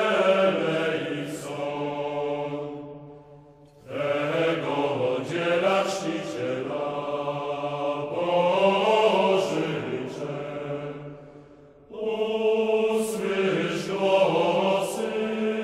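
Background music of slow, chant-like singing: long held notes in phrases of about four seconds, breaking off briefly about four and twelve seconds in.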